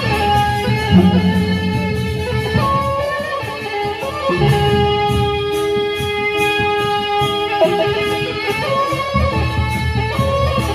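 Sasak bamboo suling flute playing a gendang beleq tune in long held notes that step to new pitches, over a steady rhythmic accompaniment.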